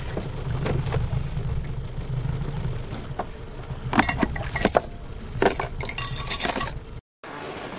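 Honda 90 outboard motor idling low and steady, with a run of sharp clinks and knocks of hard objects in the second half. It cuts off suddenly about seven seconds in.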